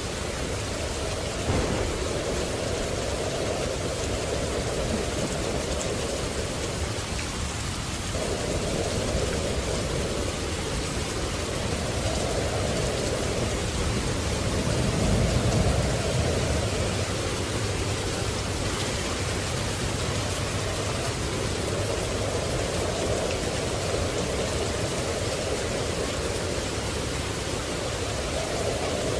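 Steady heavy rain pouring down, with a low rumble of thunder swelling up about halfway through.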